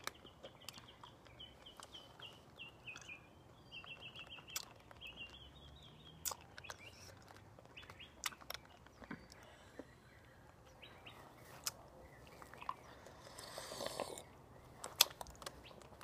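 A small bird chirping a quick run of short high notes, stopping after about five seconds, over faint mouth clicks and smacking from hard sour candy being sucked. A soft rustle and a sharp click come near the end.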